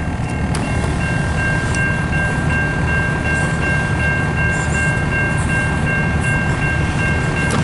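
Long CN double-stack intermodal freight train's cars rolling past: a steady, loud low rumble with a steady high-pitched tone above it.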